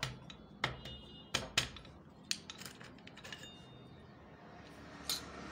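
Steel clutch plates and clutch parts of a Hero HF Deluxe engine clinking against each other and the aluminium clutch housing as they are handled: a string of sharp separate clinks, some ringing briefly, most of them in the first two seconds.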